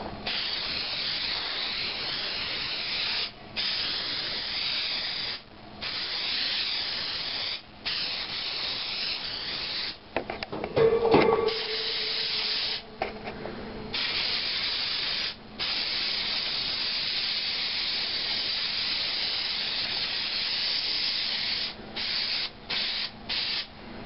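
Aerosol spray adhesive hissing from a can in long bursts with short breaks, sprayed onto fibreglass insulation. Near the end come several short, quick bursts. About halfway through there is a brief knock with a short ringing tone.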